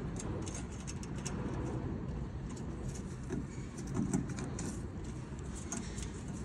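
Light ticks and rustling from a wire being worked along a car's trunk-lid hinge by a gloved hand, over a steady low rumble, with a slightly louder bump about four seconds in.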